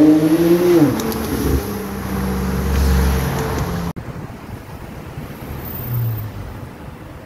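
Sports car engine accelerating past: its note climbs for most of a second, then drops and fades as the car goes by, leaving tyre and road rush. About four seconds in there is an abrupt cut to quieter, steady street traffic.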